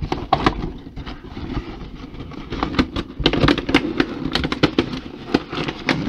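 Cardboard collector's doll box being handled and turned on a wooden tabletop: irregular knocks, scrapes and crinkles, growing busier from about halfway.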